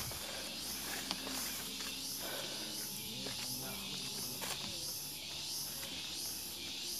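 Tropical forest insects keep up a steady high, pulsing chorus, about two pulses a second. A few footsteps crunch on dry leaf litter.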